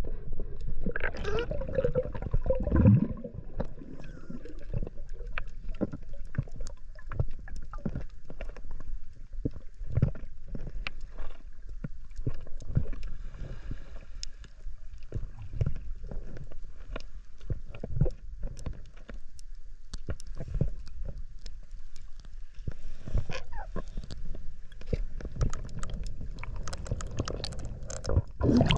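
Muffled underwater sound heard through a submerged camera: low water rumble and gurgling bubbles, with many short sharp clicks and knocks throughout. Near the end a louder splashing burst as the camera breaks the surface.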